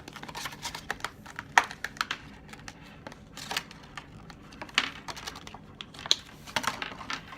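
Irregular small clicks and short rustles of earphones and their packaging being handled.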